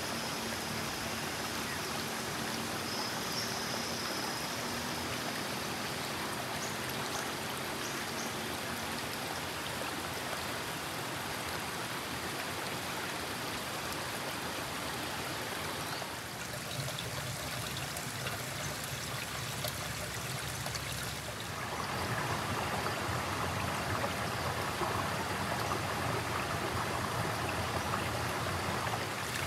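Shallow river running over rocks: a steady rushing and trickling of water, louder and fuller for the last several seconds.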